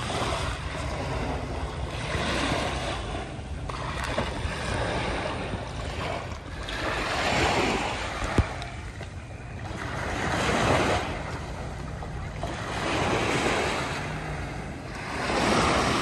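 Small waves lapping and washing up a sandy beach, the surf swelling and falling back about every two to three seconds.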